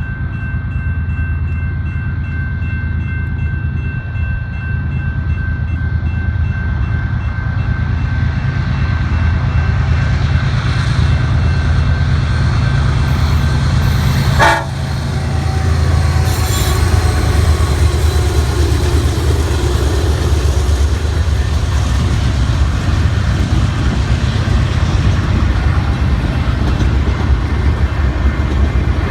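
BNSF freight train led by GE ES44C4 and C44-9W diesel locomotives passing, with a loud, steady low engine rumble. The locomotive's air horn sounds as steady tones through the first half, and there is one sharp crack about halfway through.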